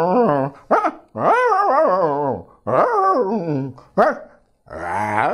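A man's voice imitating dogs: a run of dog-like calls with wavering, sliding pitch, several in a row with short breaks, the longest over a second. He is acting out two dogs courting.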